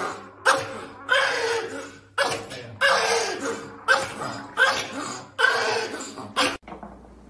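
Small Pomeranian yapping, about nine sharp high-pitched barks at one to two a second, which stop abruptly near the end.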